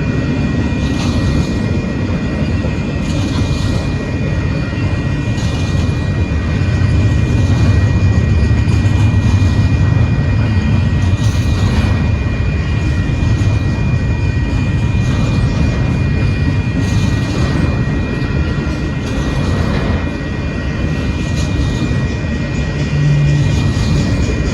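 Union Pacific intermodal freight train rolling past at speed: a steady heavy rumble of wheels on rail, swelling louder in the middle, with a faint high ringing tone held throughout.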